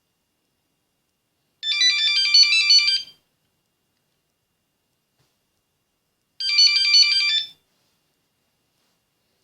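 Nokia 8110 mobile phone playing a ringtone: a quick phrase of high electronic beeps, about a second and a half long, sounded twice with about three seconds of silence between.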